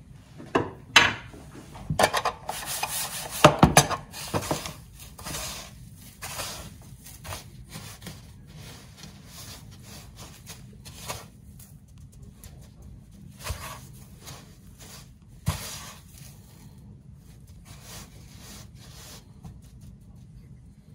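Kitchen handling sounds: rubbing and scraping with light knocks, busiest and loudest in the first five seconds, then thinning to a few scattered knocks.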